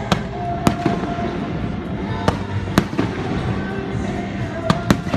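Aerial fireworks going off: about six sharp bangs in three pairs, over music playing steadily underneath.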